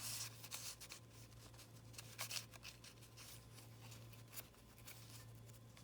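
Faint rustling and light ticks of paper being handled and tucked into a journal pocket, over a low steady hum.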